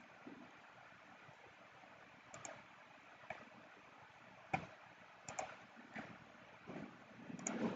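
Computer mouse clicking, a handful of short sharp clicks spaced irregularly over several seconds above a faint hiss.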